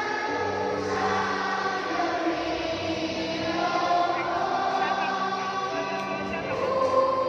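A group of schoolchildren singing a song together as a choir, with long held notes.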